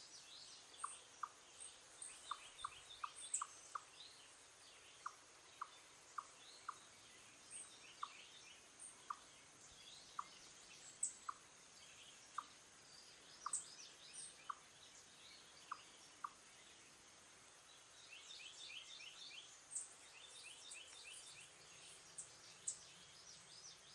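Eastern chipmunk calling with short, single clucking chip notes, a little over one a second at uneven spacing, stopping about two-thirds of the way through. High twittering birdsong runs faintly in the background and is thickest near the end.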